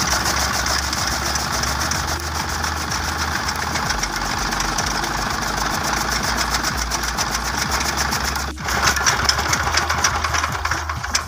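An 8 hp single-cylinder Peter diesel engine runs steadily with an even firing beat, belt-driving a chaff cutter that chops green maize stalks. About eight and a half seconds in the sound dips briefly, then comes back louder.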